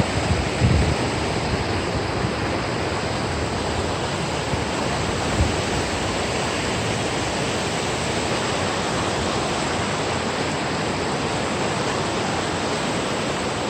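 River water rushing steadily, with a brief low rumble of wind on the microphone in the first second.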